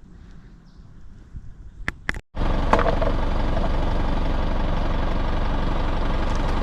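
Faint background with a few sharp clicks, then after an abrupt cut about two seconds in, a vehicle engine idling steadily.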